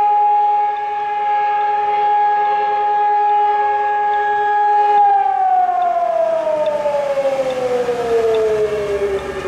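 Civil-defence alarm siren sounding a fire-brigade call-out, holding a steady high tone, then winding down in pitch from about halfway through.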